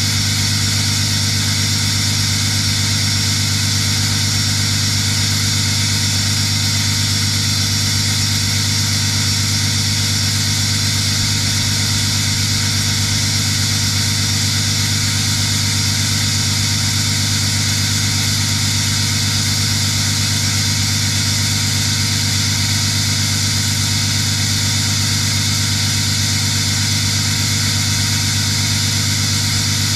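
6.7 Cummins straight-six turbodiesel idling steadily after a cold start, listened to for a possible misfire.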